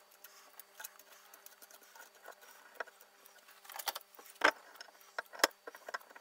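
Light metallic clicks and clinks of a steel washer, nut and adjustable spanner handled against a steel circular saw blade, with a few sharper clanks about four and five and a half seconds in.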